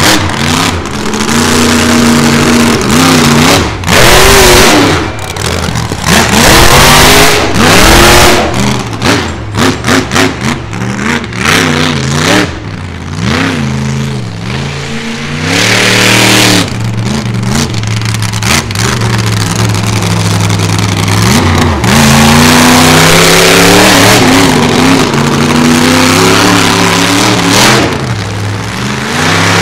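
Monster truck engine revving hard, its pitch climbing and dropping again and again as the throttle is worked, with several stretches of loud full-throttle noise.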